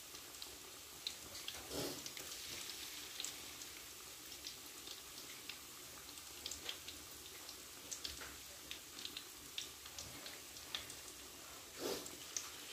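Chicken kebab pieces deep-frying in hot oil: a faint steady sizzle with scattered crackling pops. There are two brief louder swells, about two seconds in and near the end, the last as the pieces are moved in the oil.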